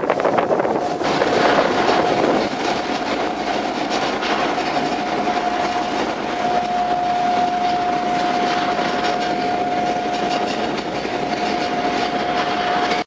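Passenger ferry under way, heard from inside the passenger saloon: a steady engine drone and rattle with a steady whine that grows stronger about halfway through, cutting off abruptly at the end.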